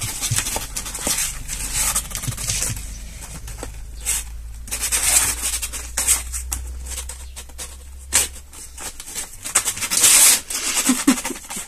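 Kittens' claws scrabbling and scratching at the cardboard sides of their box as they try to climb out: an irregular run of short scratchy rustles and scrapes.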